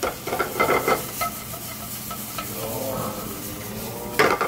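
Diced vegetables sizzling in oil in a frying pan on a gas burner, with a metal spatula scraping and stirring them in a quick run of strokes near the start. Just after four seconds there is a short, louder burst as the pan is tossed and the vegetables land back in it.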